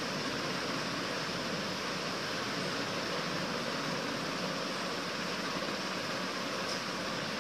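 Steady, even hiss of room noise.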